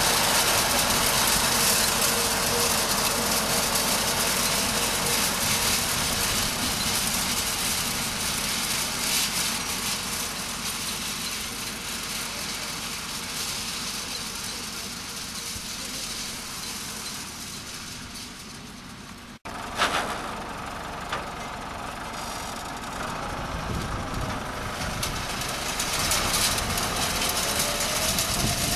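Farm tractor engine running steadily as it pulls a wheel hay rake through cut hay. About two-thirds of the way through, the sound cuts out for an instant, followed by a sharp knock.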